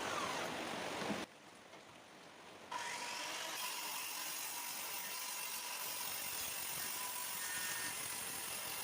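Circular saw on a track rail running, a steady high motor whine over a rushing noise; the sound drops away for about a second and a half near the start, then the whine comes back in and holds steady.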